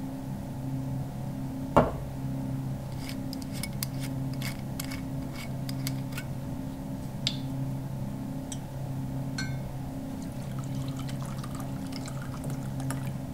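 Sound effect of a stiff drink being poured: a sharp clunk of glass or bottle set down about two seconds in, then scattered clinks of glass and the pour of liquid into a glass, over a low, pulsing background drone.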